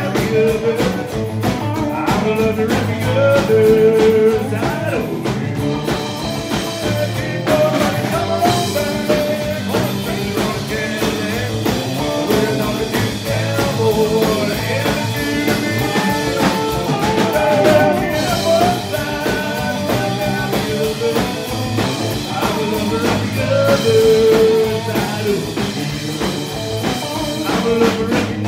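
Live country-rock band playing at full volume: electric guitar, acoustic guitar, bass guitar and drum kit, with sustained pitched notes over a steady beat.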